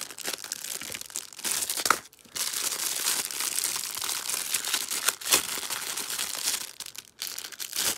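Clear plastic packaging bag crinkling and rustling with sharp crackles as it is handled and a soft phone case is worked out of it, pausing briefly about two seconds in.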